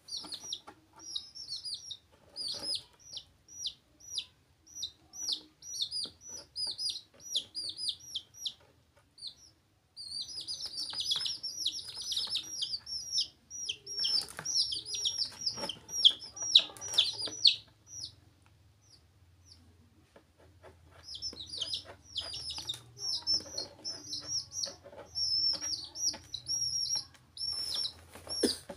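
Chicken chicks peeping: runs of rapid, high-pitched, falling peeps, several birds at once, with a short lull about a third of the way in and a longer one about two thirds of the way in.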